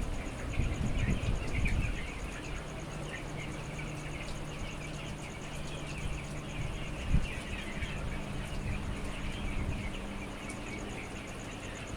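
A flock of young poultry chicks peeping, with many short high calls overlapping continuously. A faint steady low hum comes and goes beneath them, and there is a single sharp thump about seven seconds in.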